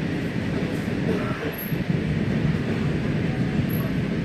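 Running noise of an electric commuter train in motion, heard from inside the carriage: a steady low rumble of the train rolling along the track.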